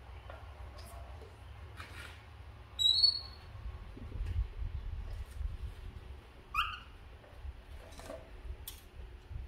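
Pet monkey giving short, high squeaks: a loud one about three seconds in and a lower, shorter one about two-thirds of the way through, over a low rumble and a few soft clicks.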